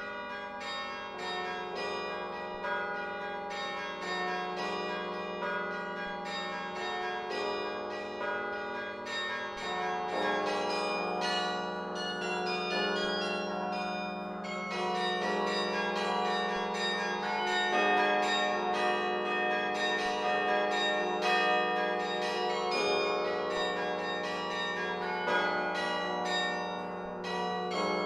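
Carillon bells played from the baton keyboard: a quick, continuous run of struck bell notes ringing over one another, with a low bell sounding steadily underneath.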